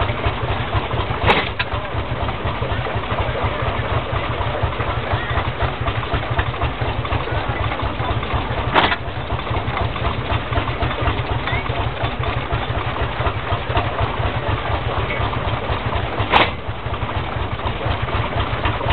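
Steam traction engine running steadily and driving a belt-driven flywheel log splitter, with a fast, even low beat throughout. Three sharp clicks stand out, about seven and a half seconds apart.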